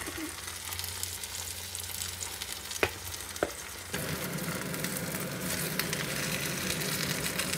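Seafood and green onion pancake sizzling in oil in a frying pan, with two sharp clicks of a spatula against the pan about three seconds in. From about four seconds the sizzling grows louder and rougher as the spatula works the pancake.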